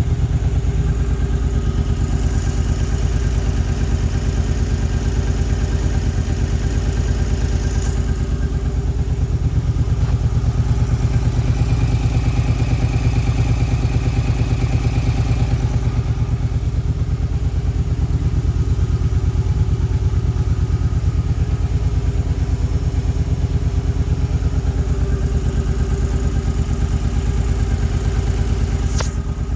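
2008 Suzuki Boulevard C50's 805 cc V-twin engine idling steadily with a ticking sound in its running.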